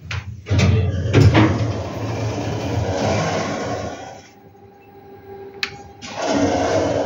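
Schindler 5400 AP traction elevator car: a few clicks, then the rumble of its sliding doors moving. After that comes a quieter stretch with a faint steady hum, a sharp car-button click about five and a half seconds in, and the rumbling noise starting up again.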